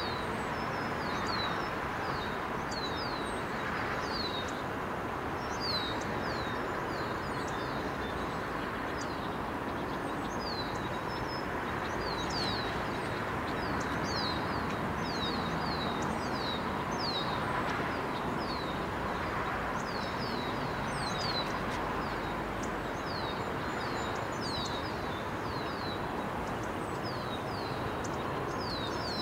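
Birds chirping over a steady background rush: short, quickly falling chirps in runs of two to four, repeated every second or two.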